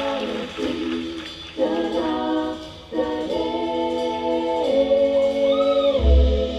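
Live Carnatic progressive rock band playing a slow passage of long sung notes that break off and restart, with a gliding phrase about five and a half seconds in. A deep bass hit comes in near the end.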